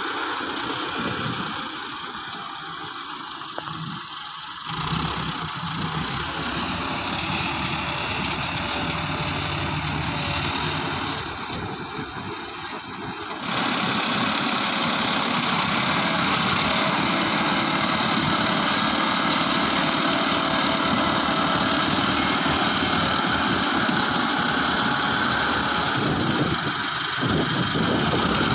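Heavy diesel machinery engines running, with the sound getting abruptly louder about thirteen seconds in and then staying steady.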